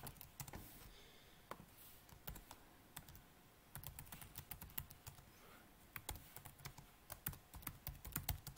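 Faint keystrokes on a computer keyboard, typing in uneven runs that quicken near the end.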